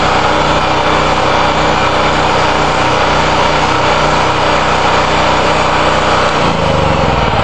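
Champion 4000-watt portable generator's small engine running steadily at a constant speed.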